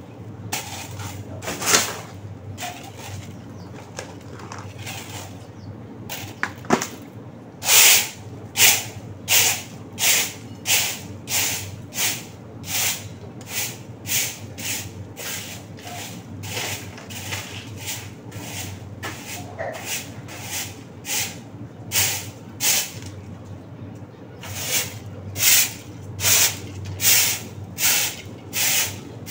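Long-handled broom sweeping a hard floor: a steady run of brisk swishing strokes, about one and a half a second, starting about eight seconds in after a few scattered strokes.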